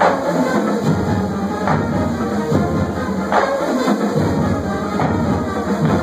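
A band playing live, with drums and a strong accented hit roughly every second and a half to two seconds.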